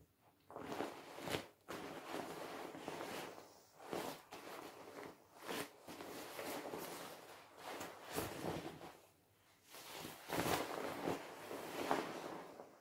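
Pink vinyl inflatable swimming pool being squeezed and handled, its plastic rustling and crinkling in irregular bursts, with a short lull about two thirds of the way through.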